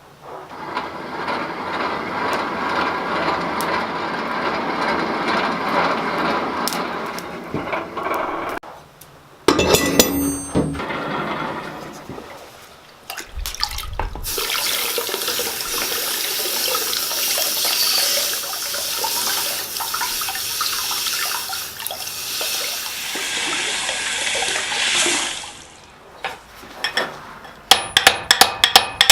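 A steady rushing noise in long stretches, broken by short gaps. Near the end come quick, evenly spaced hammer blows on metal at the anvil.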